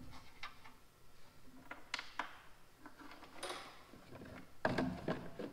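Scattered metal clicks and taps of a wrench working fine-thread bolts out of a tractor radiator's top tank, with a few louder clanks near the end.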